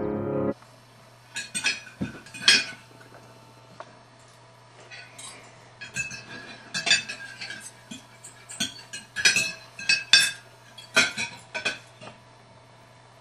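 Forks and knives clinking and scraping against plates during a meal, in irregular sharp clinks with a short ring, sparse at first and more frequent in the second half.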